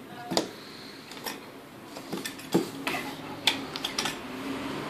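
Wires strung between screws on a homemade wooden-bat noise instrument being plucked and pulled, giving irregular metallic clicks and short twangs.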